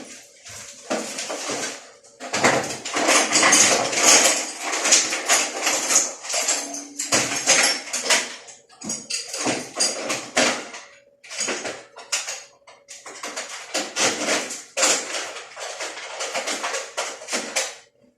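Irregular clattering, scraping and rubbing of washing machine parts being handled and cleaned, in uneven bursts with short pauses between them.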